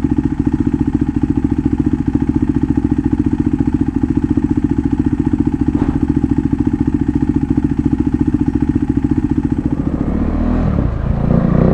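KTM RC 390's single-cylinder engine idling steadily through an aftermarket Akrapovic exhaust, an even rapid pulsing. Near the end the note changes and grows a little louder and rougher.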